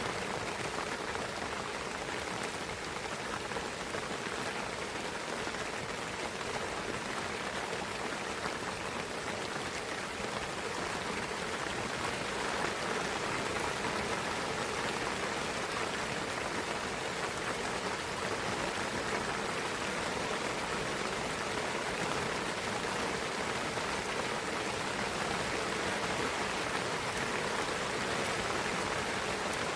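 Steady rain falling in a pine forest, an even patter of drops with no letup.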